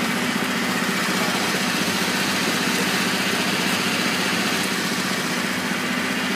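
A motor running steadily, with a constant low hum, under water churning and splashing in the fish holding tanks on the lorry.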